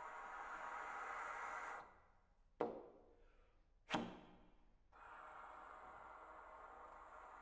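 Trombone played with unpitched air blown through the instrument: a rushing breath sound that swells and breaks off, then two sharp percussive pops about a second and a half apart, each ringing briefly, before the rushing air sound returns.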